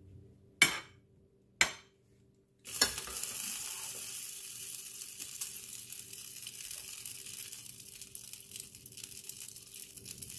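A ladle clinks twice sharply against the dishes. Then a steady hiss sets in, with light scraping and clinking, as gravy is spooned over a pot roast on a platter.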